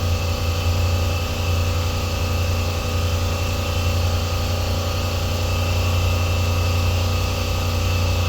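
2012 Ram 1500's 5.7-litre Hemi V8 running steadily at idle with cylinder 5 misfiring, a fault caused by very low compression in that cylinder.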